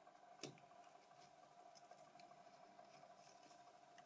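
Near silence: room tone with a faint sharp click about half a second in and a few fainter ticks after it.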